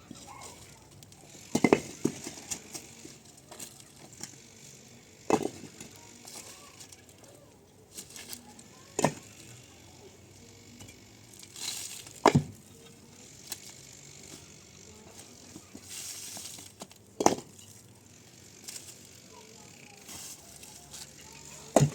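A series of sharp knocks or impacts, one every three to five seconds, each brief with a short low ring after it.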